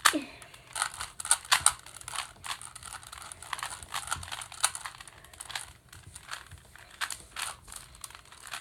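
Plastic 3x3 Rubik's cube being turned rapidly by hand, its layers clicking and clacking in a quick, irregular run of short clicks.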